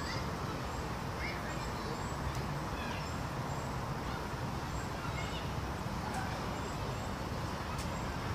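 Outdoor woodland ambience: small birds chirping faintly and repeatedly over a steady low rumble.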